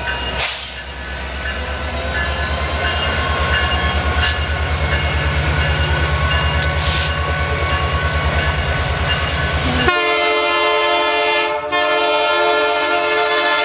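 Diesel locomotive pulling a train away slowly, its engine throbbing steadily. About ten seconds in, the sound changes abruptly to the locomotive's air horn sounding a steady chord.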